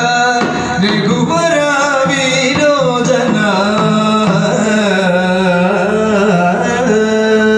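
Carnatic-style devotional singing with instrumental accompaniment. The voice slides and winds through an ornamented phrase, and from about seven seconds in, steady held notes take over.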